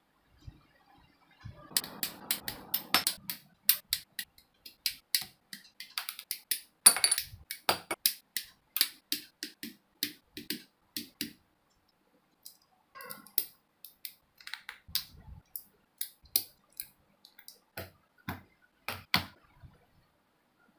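Plastic model kit parts and runner being handled, giving a long series of sharp plastic clicks and snaps, with a short rustle near the start and a brief pause about halfway.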